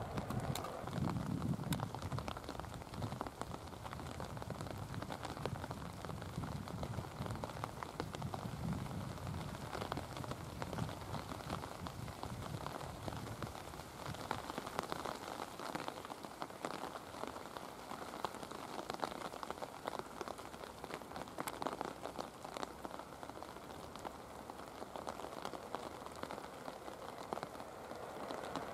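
Heavy rain falling close by, a steady hiss with many individual drops pattering. A low rumble runs under it through the first half and fades out.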